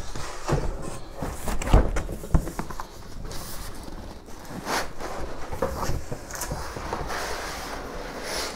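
Large cardboard shipping box being handled and opened: flaps and walls scraping and rustling as it is worked off the foam-packed contents, with a few sharp knocks about two seconds in.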